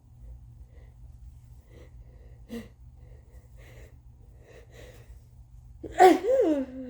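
Congested sneeze from a bad head cold: a build-up of short, faint, catching breaths, then about six seconds in one loud sneeze whose tail falls in pitch.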